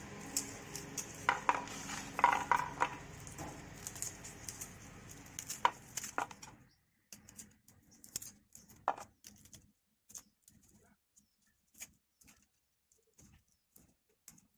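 Cooking utensil tapping and scraping in a pan in short irregular clicks. A steady background hiss stops abruptly about six and a half seconds in, leaving only scattered taps.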